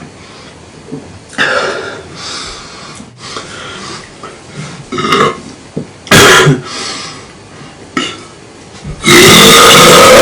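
Young man belching several times, bringing up gas from a Pepsi: a short, very loud belch about six seconds in and a long, very loud one rising in pitch near the end.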